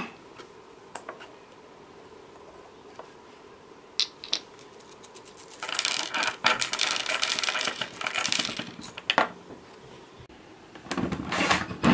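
Small hard objects handled on a tabletop: a few scattered clicks, then about three seconds of rapid metallic clinking and rattling. Near the end a louder, noisier sound begins.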